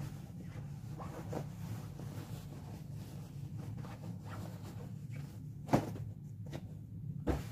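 Cotton pillowcase rustling as a pillow is pushed into it and shaken, with two sharp fabric thumps about a second and a half apart near the end. A steady low hum runs underneath.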